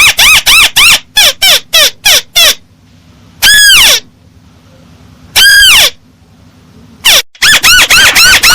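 Paddy-field crake calling: a fast run of short arched notes, about four a second, that breaks off after about two and a half seconds. Two longer drawn-out notes follow about two seconds apart, and the fast run starts up again near the end.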